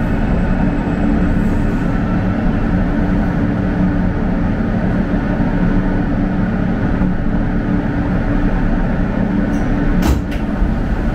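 R160 subway car heard from inside the cabin as it rolls along a station platform and brakes to a stop: steady running noise of the wheels on the rails and the motors. A single sharp click comes near the end.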